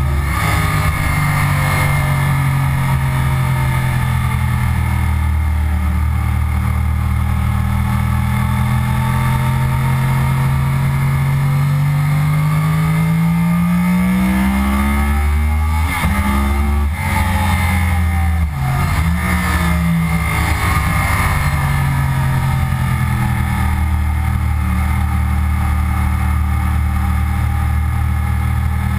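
A 2009 Yamaha R1's crossplane inline-four, heard from onboard with wind rush, pulling steadily higher in revs for about fifteen seconds. Then it breaks through a few quick drops and jumps in pitch as it shifts down under braking, and climbs in revs again near the end.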